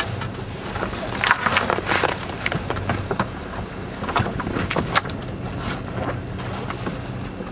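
A boat's engine running steadily, under wind buffeting the microphone and rushing sea water, with a few sudden louder gusts.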